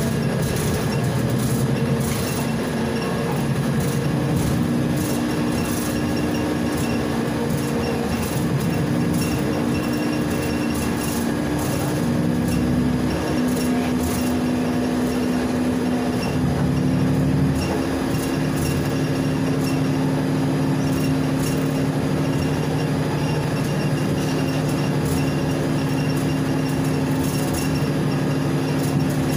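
Interior running noise of a Volgabus 5270G2 LNG city bus driving along a road: a steady engine and drivetrain drone over road and rattle noise. The drone's pitch steps a couple of times partway through.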